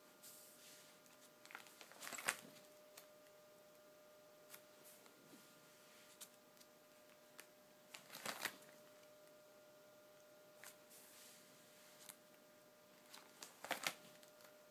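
Plastic binder sleeve pages being turned, a short crinkling rustle three times: about two seconds in, in the middle, and near the end. There are faint clicks of the pages in between.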